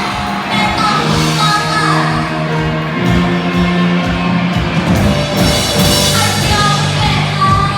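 A live rock band playing, with a singer's voice over steady bass and guitar notes, and some shouts from the crowd.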